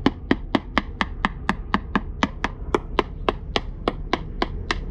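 Screwdriver tapping rapidly and evenly on a fibreglass boat hull near the keel, about four sharp taps a second.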